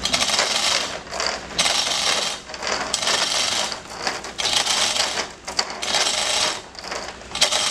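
Manual chain hoist worked hand over hand with an engine hanging from it: the steel chain rattles and clicks through the hoist in a run of pulls, about one a second.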